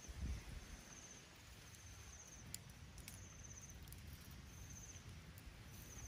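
Faint chirping of an insect: four short, high, finely pulsed chirps, about one every second and a half, over a low rumble. Two soft clicks come about midway.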